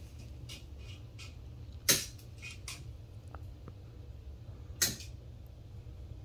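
Scattered light clicks and taps as a wall outlet and its wires are handled and pushed into an electrical box, with two sharper knocks about two seconds and five seconds in.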